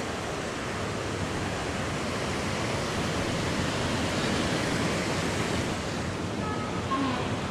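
Wind rushing steadily, an even hiss with no breaks.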